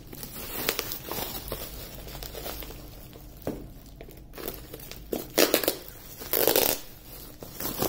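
Plastic bubble wrap and a cardboard box being handled and crinkled, with two louder bursts of crinkling in the second half.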